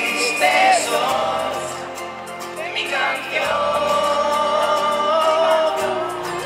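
Live pop song with singing into stage microphones over a backing track, one sung note held for a couple of seconds in the second half.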